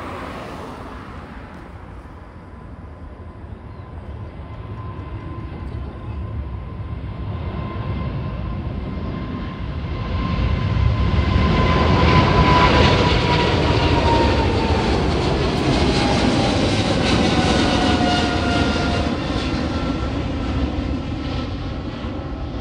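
Boeing 777 twin-jet at takeoff power, its GE90 turbofans growing louder through the takeoff roll and liftoff and loudest as it climbs past about halfway through. Then the noise eases, and a whining engine tone drops in pitch as the jet pulls away.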